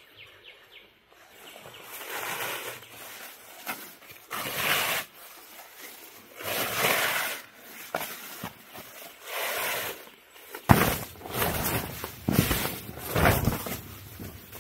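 Tarp fabric rustling and crinkling in several short bursts as it is unfolded and shaken out, then louder flapping and thumps as it is spread on the ground near the end.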